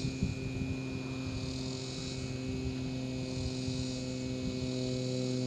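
A steady hum with several even overtones runs throughout. Behind it a high insect drone swells and fades about every two seconds.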